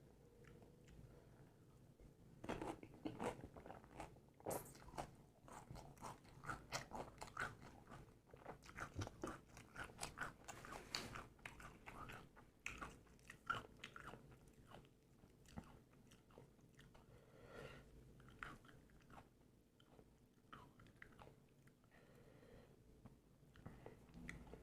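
Close-up crunching and chewing of pani puri: the crisp hollow puris are bitten and chewed in quick runs of crunches. The crunching thins out to softer, sparser chewing about halfway through.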